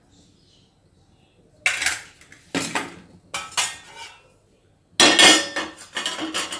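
Metal cookware clanking and scraping: a few sharp clatters, then a longer rattle near the end.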